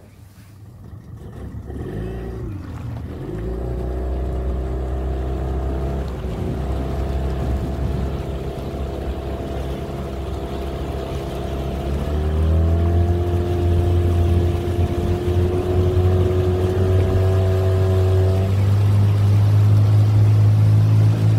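Mercury 9.9 outboard motor on an inflatable boat running, coming in about two seconds in. It is throttled up in several steps, with the pitch and loudness rising each time.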